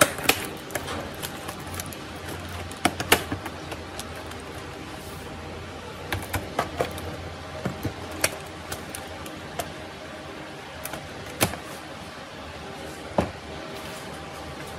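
Scattered sharp clicks and light knocks of a plastic laptop keyboard and top case being handled, unclipped and lifted off during disassembly. The clicks come in small clusters near the start and in the middle, with a single one later on.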